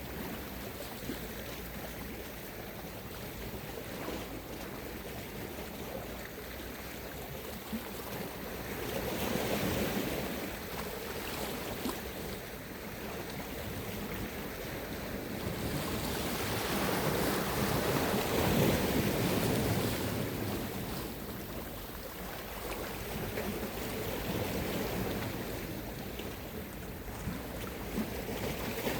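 Sea waves washing onto the shore, with two louder swells as waves break, about a third of the way in and again past the middle.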